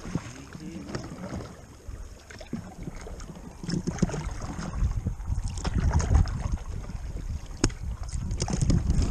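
Kayak paddling on a river: paddle blades dipping and splashing, with water slapping against the hull. Under it runs a low rumble that gets louder about halfway through.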